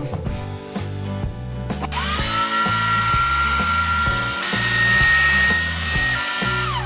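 Electric stand mixer motor starting up about two seconds in, running with a steady high whine as its beaters turn in the steel bowl, its pitch shifting once midway and then falling as it is switched off near the end.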